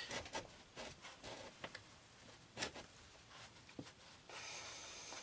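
Faint, scattered clicks and light taps of small chainsaw parts and tools being handled on a workbench, followed by a soft steady hiss near the end.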